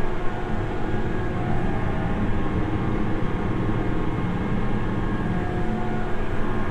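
Tractor engine running steadily under way, a continuous even drone with a few steady tones over a noisy rumble.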